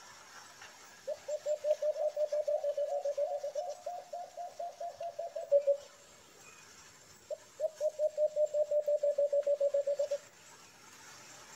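White-eared brown dove (alimokon) calling: two long runs of rapid, evenly repeated low hooting notes, about six a second, the first starting about a second in and lasting over four seconds, the second starting near the middle and lasting about three.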